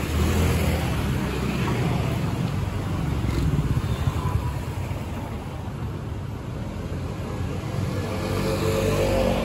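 Cars and motor scooters driving past close by in street traffic, their engines swelling as each goes by. The loudest passes come at the start and again near the end.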